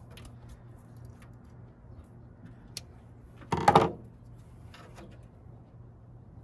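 Faint clicks and light handling noise of electrical wire being worked at a lamp receptacle, with one short, much louder sound about three and a half seconds in.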